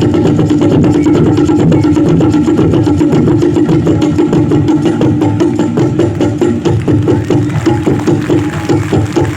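Tabla played in fast, dense strokes imitating a running train's rhythm, with a steady ringing pitch from the tuned drum; near the end the strokes become more separate and pulse more clearly.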